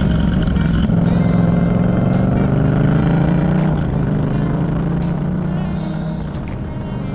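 Motorcycle engine running steadily under way, its pitch rising and easing a little as the rider works the throttle, with background music.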